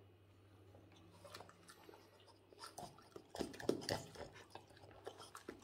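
Boston terrier snatching a piece of chicken off a fork and chewing it. A run of short wet snaps and smacks comes about three seconds in, with a few softer chews after.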